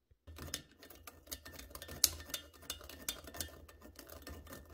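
Dense, irregular scratching and ticking of a pencil tip worked around inside a mounting hole of a cast-iron bench clamp base, tracing the hole onto the wood, with the pencil knocking against the metal rim. The loudest click comes about two seconds in.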